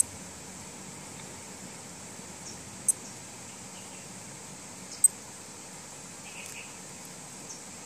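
Casio G-Shock Rangeman GW-9400 digital watch giving three short, high beeps about two to three seconds apart as its mode button is pressed and the display steps through its modes.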